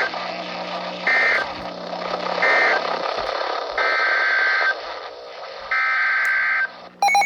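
EAS/SAME digital data bursts on a weather radio broadcast, a harsh two-tone warbling squawk. Three short end-of-message bursts come about a second apart, then two longer header bursts start the next alert, all over steady radio hiss.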